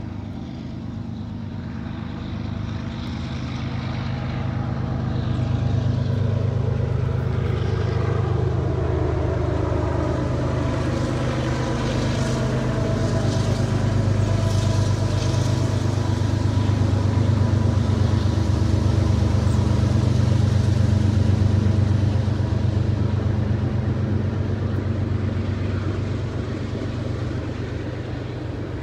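CN train's diesel locomotive passing: a steady low engine drone that swells over the first six seconds, stays loud for most of the time, and fades toward the end.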